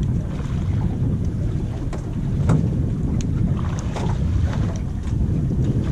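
Wind buffeting the microphone over water lapping against the hull of a small fishing boat at sea, a steady low rumble with a few faint short clicks.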